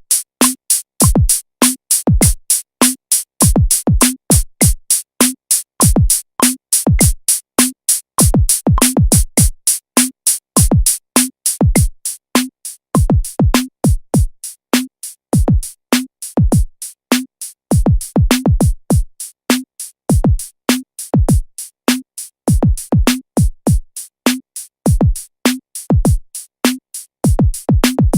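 Drum-machine beat from a Native Instruments Maschine Studio: deep kick drums that slide down in pitch, a regular snare or clap, and fast hi-hats in a steady looping groove.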